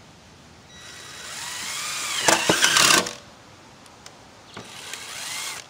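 Cordless drill driving screws through a roof vent's flange into metal roofing: the motor whine rises for about two seconds and ends in a loud rattling about three seconds in, then a second, shorter run near the end.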